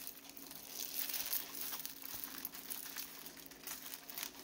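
Clear plastic wrapping around a rolled diamond painting canvas crinkling on and off as it is handled, over a faint steady hum.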